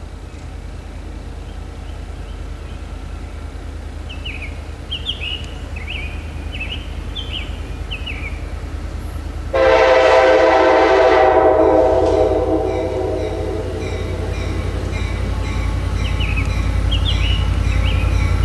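EMD F40PH-2 diesel locomotive approaching under power, its engine rumble growing louder as it notches up. About ten seconds in it sounds one long blast, about three seconds, on its Nathan Airchime K5LA five-chime air horn.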